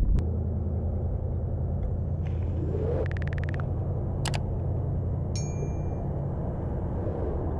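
Steady low rumble of traffic on the concrete road bridge overhead. A quick run of clicks comes about three seconds in and a single sharp click a second later, then a short bright ding as the subscribe-button animation's bell is clicked.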